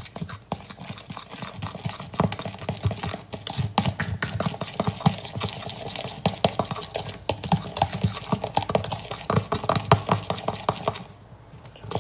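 Vigorous hand mixing in a plastic mixing bowl: a fast, continuous run of clicking strokes as the utensil beats against the bowl, stopping about a second before the end.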